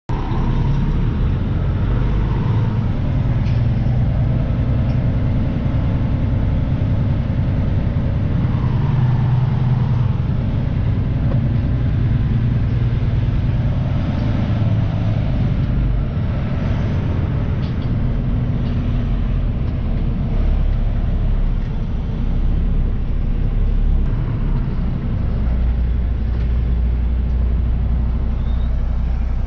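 Semi truck on the road: a steady low engine drone with road noise.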